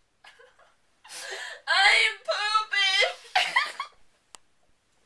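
A person crying and wailing in a tantrum: several high-pitched, wavering sobbing cries starting about a second in and stopping near the end.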